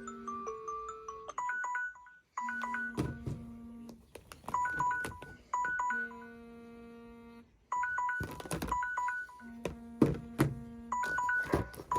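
Smartphone ringtone and alarm melodies: short electronic chime notes that stop and restart several times with brief silences, one part a held chord. A few dull thuds sound through them about 3 seconds in, around 8 to 10 seconds, and near the end.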